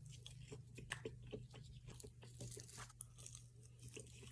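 Faint, close-miked chewing of fried fast food, with soft irregular crunches and mouth clicks.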